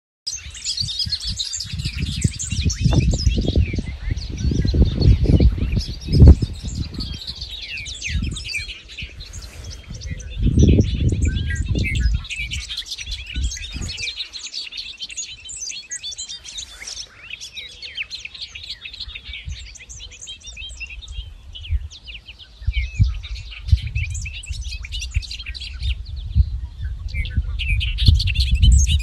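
Many songbirds chirping and singing together over an open field. Gusts of wind buffet the microphone with a low rumble, strongest in the first twelve seconds and again near the end.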